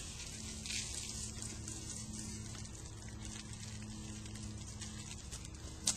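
Faint steady low hum under an even hiss like running water, with a few short rustling hisses as a shaker bottle of beneficial mites in their carrier is shaken out over pepper leaves.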